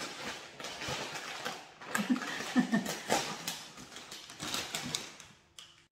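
Plastic snack-chip bag crinkling and rustling as it is handled and torn open with the teeth. The crinkling dies away shortly before the end.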